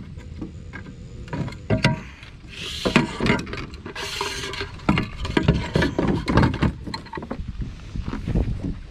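Hollow plastic knocks and clatter of a fish-measuring board being handled and set against a plastic kayak hull, with two short hissing rushes about three and four seconds in.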